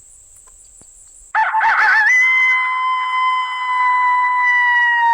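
ICOtec electronic game caller playing the MFK Blackout Howls coyote howl through its speaker. A little over a second in, a loud howl starts with a quick wavering rise, then holds one long steady high note and drops off at the end. Crickets chirp faintly underneath.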